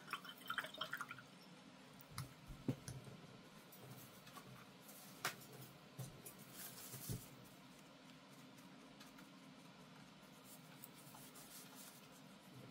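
Faint scratching and a few light taps of a paintbrush working watercolour paint on paper, mostly in the first half, then little but room tone.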